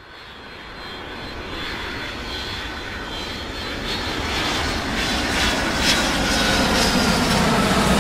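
Car travelling at motorway speed, with steady engine and tyre road noise heard from inside the cabin, getting louder through the first few seconds.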